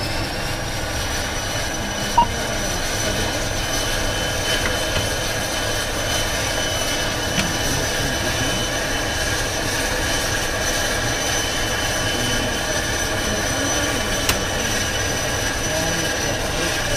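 ATR's Pratt & Whitney PW127 turboprop engine heard from inside the cockpit as it finishes its start: a high whine rises in the first second and settles. It then runs steadily at idle with the propeller brake on.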